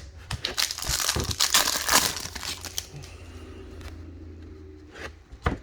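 Crinkling and rustling of plastic packaging as trading cards are handled, densest in the first two seconds, then quieter, with a couple of sharp clicks near the end.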